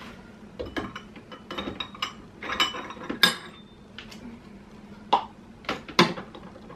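Containers and a bowl being moved about on a high shelf: irregular clinks and knocks, with sharp clacks about three, five and six seconds in.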